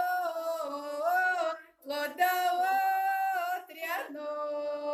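Unaccompanied Russian folk song sung by a group of women and men: slow, drawn-out phrases with a short breath about halfway through, then a long, steady held note near the end.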